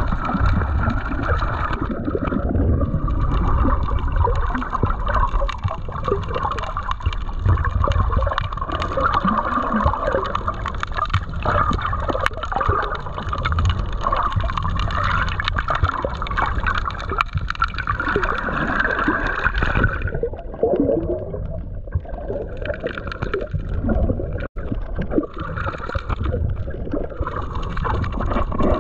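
Muffled underwater water noise, with water gurgling and sloshing around a GoPro in its waterproof housing as it moves through shallow seawater. The noise is continuous, with a momentary drop-out about three-quarters of the way through.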